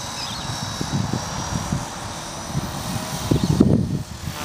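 EXI 450 RC helicopter autorotating with its motor switched off completely, the rotor spinning up in pitch as the RPM rises in the flare. Irregular low rumbling surges run under it, strongest a little past three seconds in, with a brief lull near the end.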